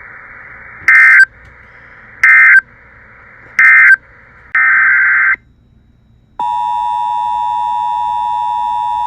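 Emergency Alert System SAME digital data bursts: three short, identical buzzy bursts about a second and a half apart, the end-of-message code, then a longer burst. After a brief gap, the steady two-tone EAS attention signal starts about six seconds in.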